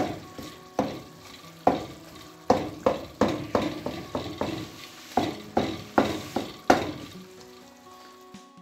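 Wooden spoon mashing tomatoes in sizzling oil in a wok: about a dozen knocks and squelches against the pan over a steady frying sizzle, stopping about seven seconds in.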